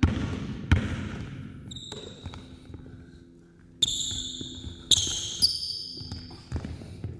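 A basketball bouncing on a hardwood gym floor, with two hard bounces at the start and lighter ones near the end. Basketball shoes squeak sharply on the hardwood several times, around two seconds in and again from about four to six seconds in, as the players cut and plant.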